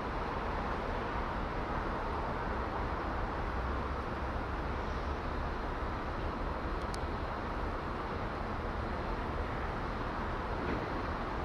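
Steady outdoor background noise: an even hiss over a low rumble, with a faint high steady tone and one small click about seven seconds in.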